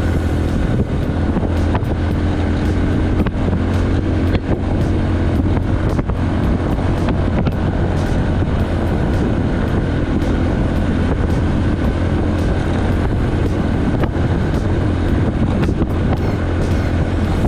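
Engine of a moving vehicle running steadily, a constant low drone with faint clicks over it.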